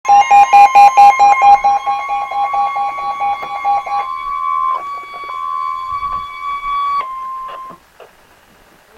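Emergency alert warning tone of a weather radio broadcast announcing a severe thunderstorm warning: a steady, loud, high-pitched tone that cuts off about seven seconds in. For the first four seconds a rapid pulsing beep, several a second, sounds over it.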